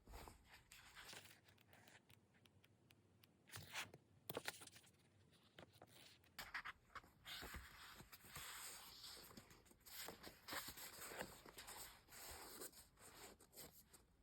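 Faint handling noises of books and their packaging: scattered light clicks and taps, then near-continuous rustling and scraping from about six seconds in.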